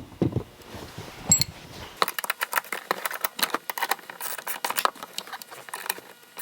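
A few dull handling knocks, then from about two seconds in a dense run of rapid, irregular metallic clicking and rattling as seat-belt buckle hardware is worked by hand.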